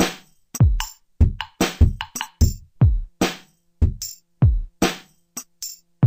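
Electronic music: a drum-machine beat of deep kick drums that slide down in pitch, with sharper hits between them and each hit cut off short, leaving silent gaps.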